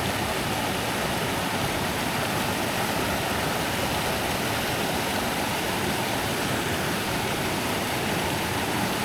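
Steady rush of a small mountain stream's water running over riffles, even and unbroken throughout.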